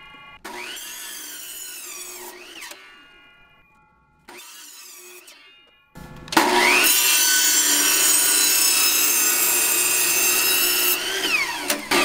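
Electric chop saw (compound miter saw) motor spinning up and winding down in two short runs. About six seconds in comes a long, loud run as the blade cuts through a small log, and the saw winds down near the end.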